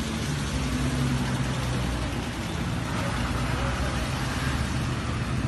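Steady wind noise rumbling and buffeting across the phone's microphone in the storm's wind, with faint voices in the background.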